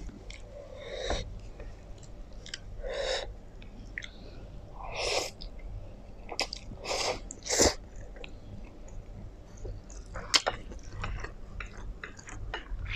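Close-up eating sounds: a mouthful of black bean noodles slurped in several short pulls about five to eight seconds in, with wet chewing between. A few sharp clicks come near the end.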